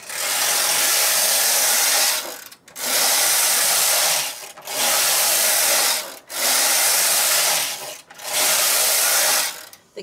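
Knitting machine carriage pushed back and forth along the metal needle bed five times, each pass a rattling slide of about one and a half to two seconds with a short pause between strokes. The carriage has just been lubricated with WD-40 where it rides on the bed and is moving a lot smoother now.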